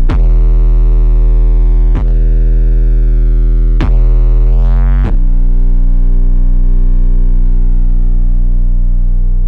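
Background music: a deep, sustained synthesizer tone with no vocals, stepping to new notes a few times in the first five seconds and then holding one long note.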